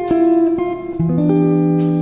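Background music: a plucked guitar picking out a run of notes.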